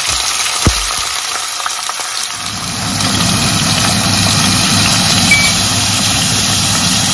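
Frozen green peas and garlic sizzling in hot oil in a small pan, a steady hiss. A little over two seconds in, a steady low hum comes in under it and stays.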